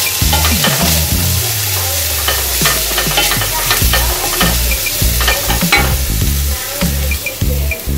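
Wooden spatula stirring and scraping shredded chicken, chopped capsicum and onion around a stainless steel stock pot, with light sizzling of the food frying in a little oil.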